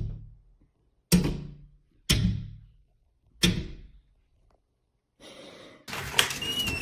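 Four heavy thuds about a second apart, each dying away over half a second, with a faint hiss near the end.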